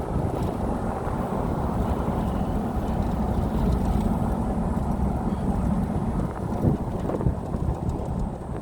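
A vehicle driving along, a steady low rumble of motor and road noise with wind on the microphone. A couple of brief louder bumps come near the seven-second mark.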